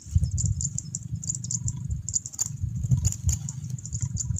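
Wind rumbling unevenly on the microphone, with light crinkles and clicks of handling close by as a small frog is put on a fishing hook over a woven plastic sack.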